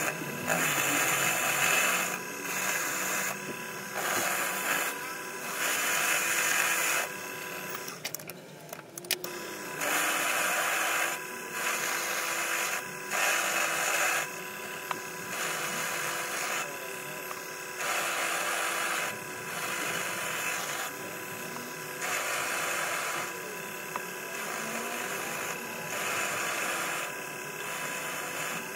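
Proxxon mini lathe running with a steady motor whine while its turning tool cuts a steel rebar workpiece in repeated harsh hissing bursts of a second or two, with a short break about eight seconds in.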